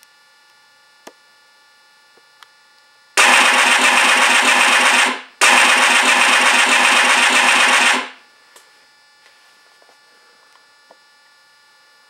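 Simulated machine-gun fire from an MR RC Sounds V4 sound module, played through the speaker in a model P-51B: two loud bursts of about two and two and a half seconds with a short break between, over a steady electrical hum.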